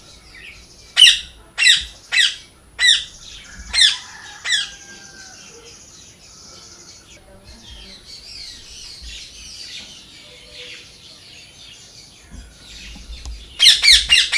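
Birds calling: six loud, harsh squawks in quick succession over the first few seconds, then softer chattering calls, and a fast run of loud squawks starting near the end.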